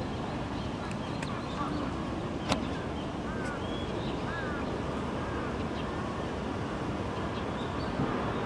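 Open-air garden ambience: a steady low background rumble with faint high chirps now and then, and one sharp click about two and a half seconds in.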